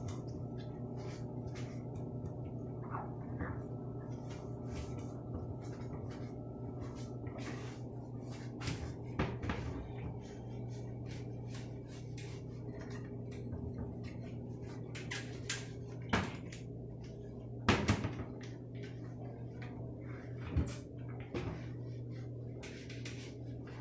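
Cloth and rubber-gloved hand wiping kitchen cabinet doors and an oven's glass front, with several short knocks and clacks against the cabinet doors, over a steady low hum.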